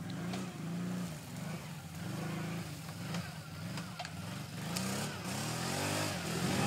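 Quad bike (ATV) engine under load climbing a steep trail section, revving up and down as the rider works the throttle, with the pitch rising and falling repeatedly.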